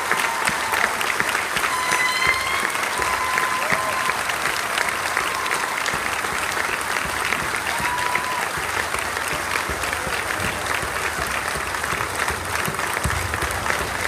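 An audience applauding steadily, with a few short calls from the crowd rising above the clapping in the first eight seconds.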